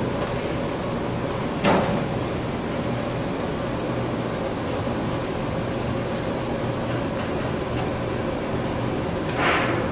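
Steady hum and hiss of food deep-frying in a black wok over a gas burner. A sharp metal clack comes about two seconds in as the wire skimmer strikes the wok, and a short scraping rush comes near the end.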